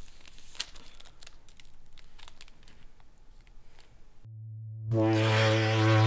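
Faint scattered crinkling clicks from handling a wrapped snack, then a loud, steady, buzzy synthesizer drone cuts in about four seconds in and swells louder a moment later.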